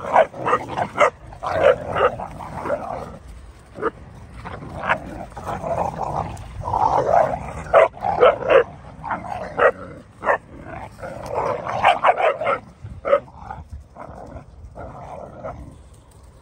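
Three-month-old Dogo Argentino puppies play-fighting, growling and barking in quick short bursts as they wrestle for dominance, with a brief lull about four seconds in and quieter calls near the end.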